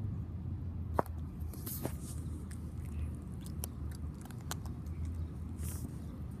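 Cat crunching dry kibble: a series of short, sharp crunches, the sharpest about a second in, over a steady low rumble.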